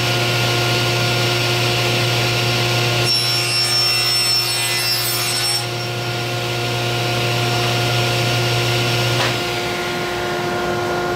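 Table saw running with its blade tilted to about 35 degrees, making a bevel cut through a pine board. The cut, with a high whine and the rasp of wood, runs from about three seconds in to nearly six seconds. Near the end the motor's low hum stops while the rest of the noise carries on.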